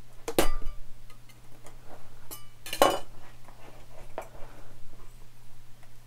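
A 2006 Intel Mac Mini being handled as its plastic inner frame is worked out of the aluminium shell: hard plastic and metal clicks and clacks, with two sharper clacks about half a second in and near three seconds.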